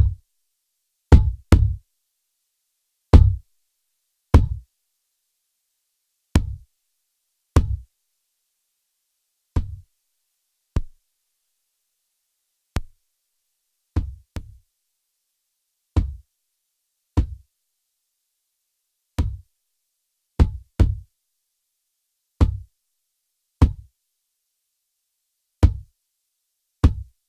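Isolated kick drum hits played through a Lindell 7X-500 (1176-style FET) compressor: a hard, clicky attack over a short low thump, about one every one to two seconds with some in quick pairs. The hits' loudness shifts from one to the next as the compressor settings are changed.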